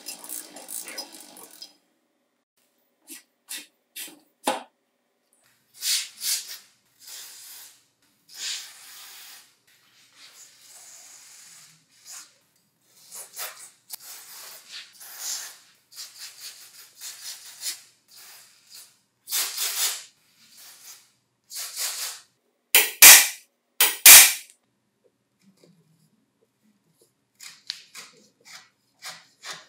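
Short bursts of hand-tool and parts-handling noise from a rusty vintage ice shaver being worked on: scrapes and clicks separated by silences. Two sharp knocks about a second apart near the end are the loudest.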